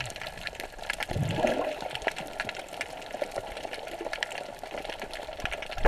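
Water heard underwater through a submerged action camera: a steady sloshing, bubbling wash with many small clicks and crackles, a louder low gush of bubbles about a second in, and a sharp knock right at the end.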